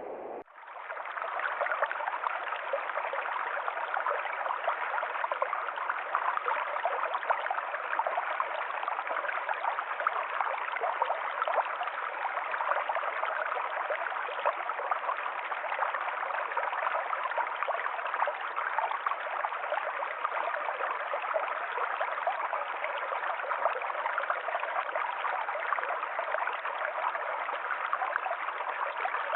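Forest stream flowing over rocks: a steady, even rush of water. It starts about half a second in, right after a brief drop.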